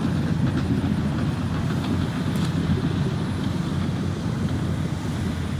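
Diesel engine of a dump truck running close by, a steady low-pitched sound.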